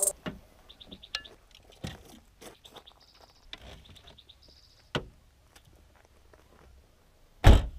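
Fishing gear being handled in a car trunk, with light clicks, rustles and steps on gravel, while a small bird gives short high trills several times. Near the end the trunk lid is slammed shut with one loud thump, the loudest sound.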